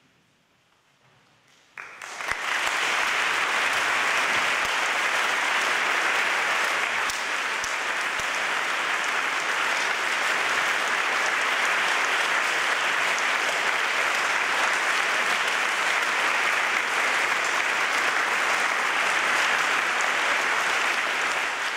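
Large audience applauding, starting suddenly about two seconds in after a brief silence, then holding steady.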